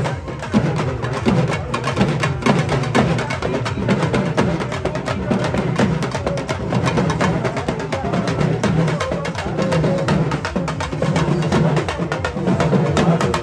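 Chinese temple percussion music: drums beaten in a fast, continuous rhythm with sharp clacking and clashing strokes over them.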